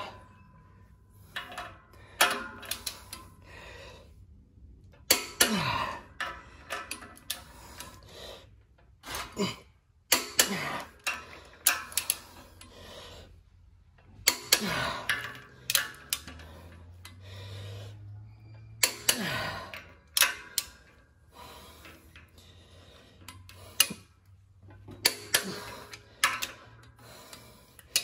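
Click-type torque wrench tightening the ring gear bolts on a Dana 44 differential carrier to 135 ft-lb. Every few seconds a pull brings a creak that falls in pitch and a sharp click, then a quick run of ratchet clicks as the wrench is swung back.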